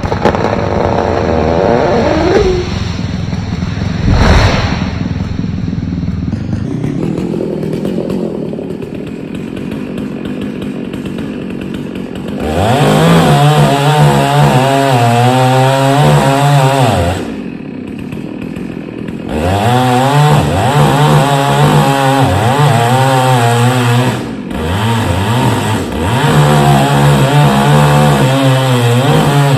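1997 Dolmar 6800i two-stroke chainsaw running. It is quieter at first, with a thump about four seconds in. About halfway through it goes to full throttle in three long stretches of several seconds, dropping back briefly between them.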